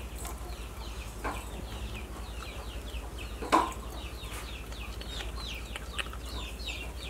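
Crested porcupine gnawing a cut pumpkin, with a few sharp crunches, the loudest about halfway through. Behind it runs a steady stream of high, quick peeping chirps, several a second, over a low hum.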